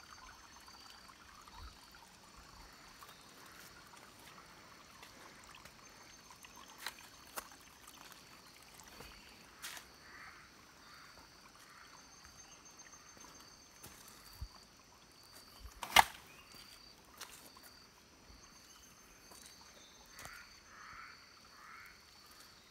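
Jungle ambience: insects keep up a faint, high-pitched pulsing chirp, with scattered rustles and clicks of footsteps on leaf litter. One sharp knock about sixteen seconds in is the loudest sound.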